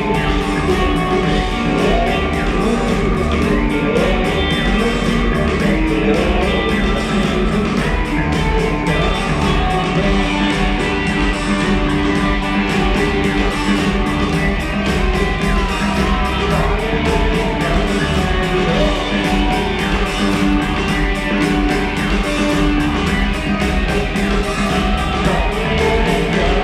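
Live rock band playing in a large arena: electric guitars over a steady drum beat.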